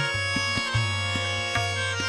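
Tabla playing a steady rhythm over a sustained drone, in a pause between vocal phrases of a Hindustani classical performance. The bass drum's low, sliding strokes sound under regular sharp strokes a few tenths of a second apart.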